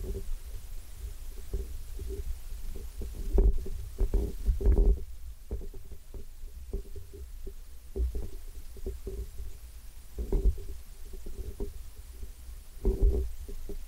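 Muffled low rumble with irregular thumps: handling noise from a hand-carried camera's microphone. A faint steady hum runs underneath.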